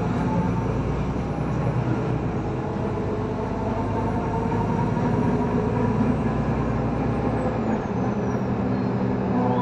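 Inside the passenger cabin of a Solaris Urbino 18 III articulated city bus: its diesel engine and drivetrain run steadily as the bus drives along. The deep rumble eases off about eight seconds in.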